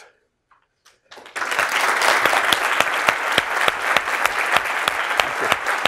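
Audience applauding: a room full of people clapping, starting about a second in after a brief hush and going on steadily.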